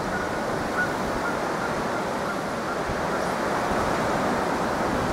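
Strong wind blowing across a phone microphone: a steady rushing noise.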